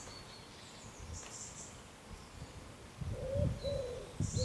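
Small birds chirping in short high calls, with a thin whistled note near the start. Wind gusts on the microphone rumble over the last second or so.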